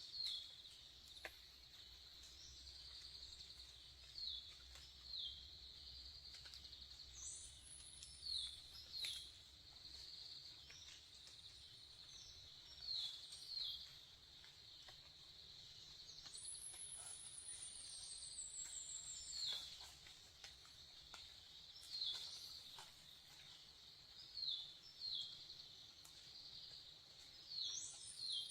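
Faint forest ambience: a steady, high insect drone, with short falling bird chirps, often in pairs, every few seconds. A couple of long, high whistles slide slowly down in pitch.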